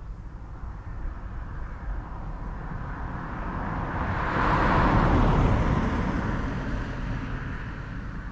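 A car passing by: tyre and engine noise swells to a peak about five seconds in, then fades, over a low rumble of wind on the microphone.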